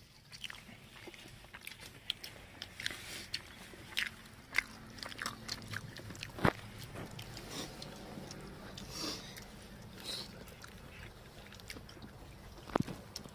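People eating chicken curry and roti by hand: chewing and biting, with scattered short clicks and taps. A faint low hum comes in underneath about four seconds in.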